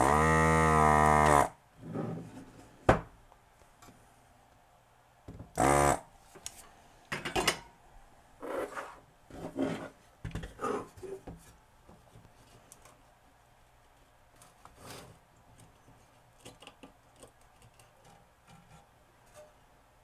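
Electric desoldering gun's vacuum pump running in a loud, steady burst of about a second and a half as it sucks molten solder from an inductor's pins, then a shorter burst about six seconds in. After that, scattered clicks and knocks of the metal stereo chassis being handled and turned over.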